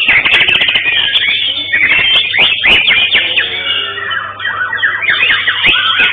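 White-rumped shama (murai batu) song: a dense, loud stream of fast whistles, chirps and pitch glides.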